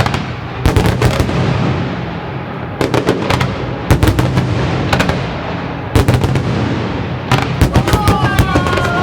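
Display fireworks bursting overhead in rapid volleys of sharp bangs, each group followed by a rumbling echo. Near the end come a few rising whistling tones.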